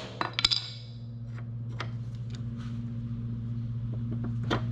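Metal-on-metal taps on a flathead screwdriver wedged into the slot of a split pulley hub on a mower deck spindle, spreading the hub to release its grip on the shaft: a quick run of sharp taps just after the start, lighter clinks as the hub is worked by hand, and another sharp tap near the end, over a steady low hum.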